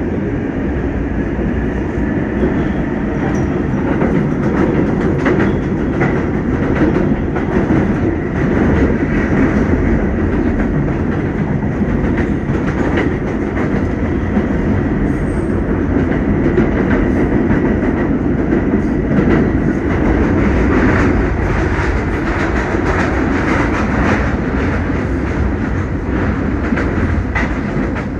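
Inside an R188 subway car running at speed: a steady loud rumble of wheels on rail, with rapid irregular clicks from the track and a faint thin steady high tone.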